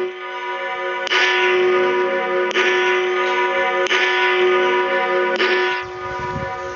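Two church bells swinging and ringing together, a fresh strike about every one and a half seconds, four in all, with the bells' tones ringing on between strikes. The peal eases slightly near the end.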